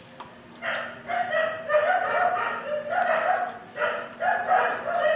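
A dog barking and yipping repeatedly, a run of short high-pitched calls beginning about a second in.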